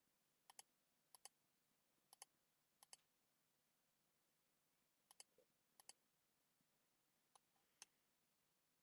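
Faint short clicks, mostly in quick press-and-release pairs, repeated about seven times at irregular intervals over near silence: a pointing device clicking to place path nodes with a drawing program's pen tool.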